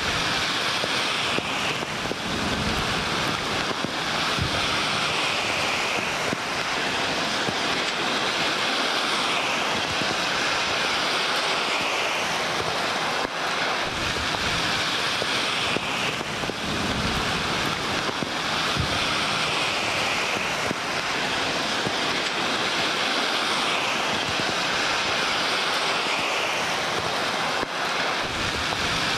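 Heavy downpour: a steady hiss of rain, with gusts of wind now and then rumbling on the microphone.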